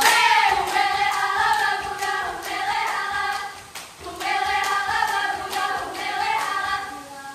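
Ratoh Jaroe performance: a group of female voices singing in unison, with sharp hand claps and slaps on the chest keeping time. The singing breaks off briefly about four seconds in, then resumes.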